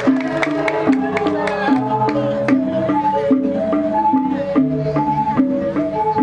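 Balinese gamelan music: a repeating figure of short struck metal notes stepping between a few pitches, cycling about every two seconds, with sharp percussive clicks over it.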